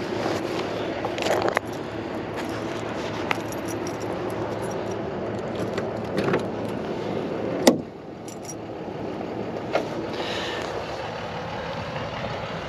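Car keys jingling on a ring, with scattered light clicks and one sharp clack about two-thirds of the way through as the trunk lock is worked. A steady low hum runs underneath.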